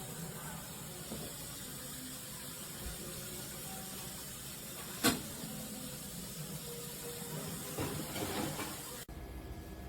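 Steady background hiss with a single sharp click about five seconds in and brief rustling near the end, then an abrupt switch to a different, quieter background.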